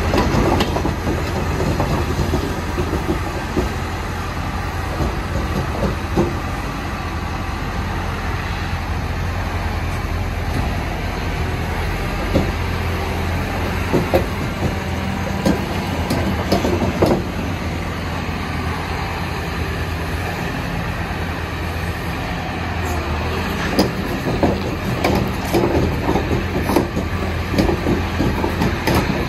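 Caterpillar 312E hydraulic excavator's diesel engine running steadily under load as the machine tracks up steel loading ramps onto a trailer, its steel tracks clanking and knocking on the ramps, more often near the end.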